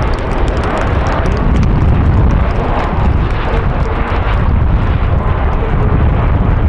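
Canadair CT-114 Tutor jets' single turbojet engines running loud and steady, a deep rush with a crackle through it.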